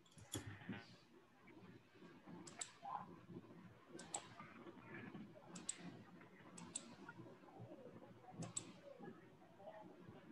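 Faint computer mouse clicking: about six sharp clicks, each a quick pair, spaced a second or two apart over low room noise.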